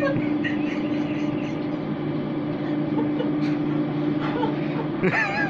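Steady low hum, with faint voices in the background and a brief wavering, voice-like cry near the end.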